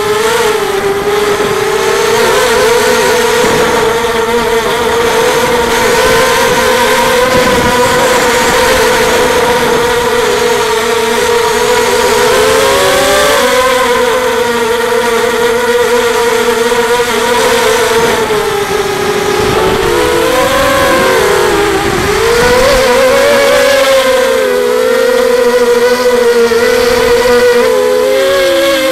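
FPV racing quadcopter's electric motors and propellers whining steadily, heard up close from the craft's onboard camera. The pitch dips and swoops back up with throttle changes about halfway through and a few times in the last third.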